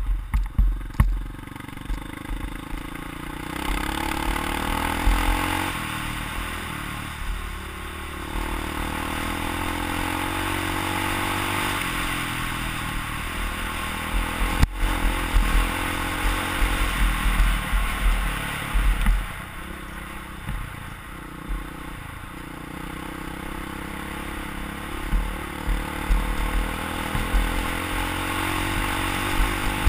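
Dirt bike engine running and changing revs as the bike rides over rough dirt, the pitch rising and falling repeatedly. Irregular low buffeting from wind on the helmet-mounted microphone runs through it.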